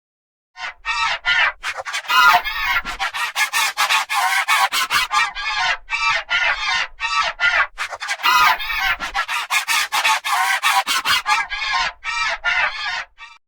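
Homemade Quetzalcoatlus sound effect: a rapid string of short, harsh, honking calls that run almost back to back, starting half a second in and stopping just before the end.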